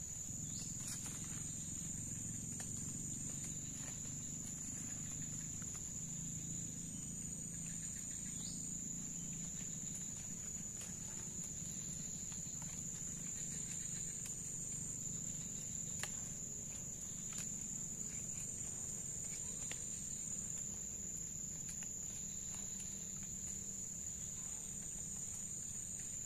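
Steady, high-pitched drone of forest insects such as cicadas or crickets, held unbroken throughout, over a low steady background rumble with a few faint clicks.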